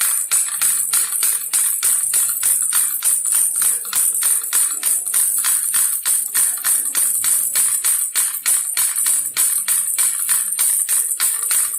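Baby rattle shaken steadily, jingling at about four to five shakes a second.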